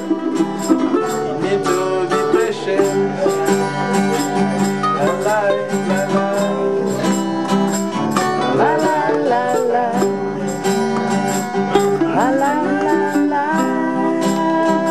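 Music led by plucked string instruments, playing steadily.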